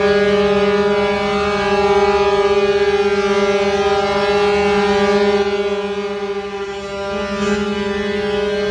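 Ship's horn blowing one long, loud, steady blast at a fixed pitch, with a slight pulsing in its tone.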